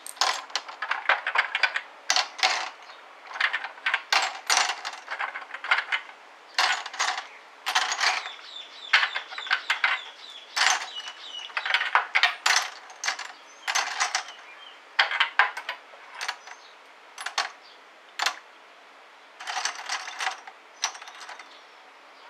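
Brass .308 Winchester cartridge cases clinking as they are dropped by hand, a few at a time, into the metal tank of an ultrasonic cleaner. The quick irregular clicks come in clusters and thin out towards the end.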